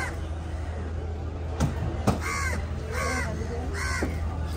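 Crows cawing: a caw at the start, then three more in a row about two-thirds of a second apart from the middle on. Two sharp knocks come in between, a knife striking the wooden cutting block while cutting fish, over a steady low hum.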